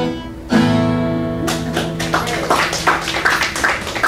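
Acoustic guitar playing the closing chords of a folk song: a strummed chord rings out about half a second in, and from about a second and a half in, quick, irregular sharp strokes crowd in.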